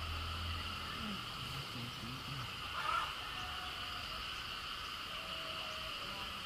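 A steady chorus of insects droning on several unbroken high-pitched notes, with a brief louder chirp about three seconds in.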